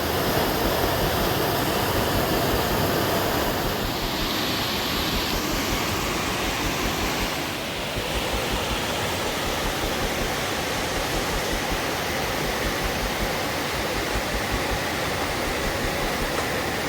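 Roadside waterfall of about a 20-foot drop, its water pouring down in a steady, continuous noise.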